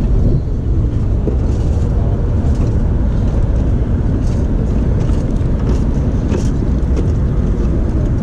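Steady low rumble of street traffic and air buffeting a chest-worn action camera's microphone, with light scuffs of jacket fabric rubbing near the microphone.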